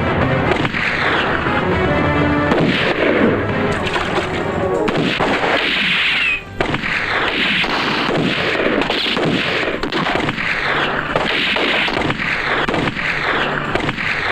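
Film-soundtrack gunfight: the same stock gunshot sound effect repeated over and over in dense volleys, over background music. The sound is muffled, with little high end.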